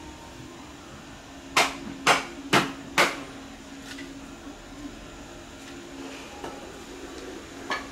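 Four sharp knocks in quick succession, about two a second, over a steady low hum; one more knock comes near the end.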